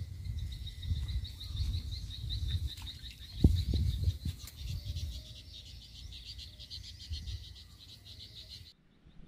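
A steady high-pitched pulsing chorus of small calling animals, over a low rumble, with a single loud knock about three and a half seconds in; the sound cuts off abruptly near the end.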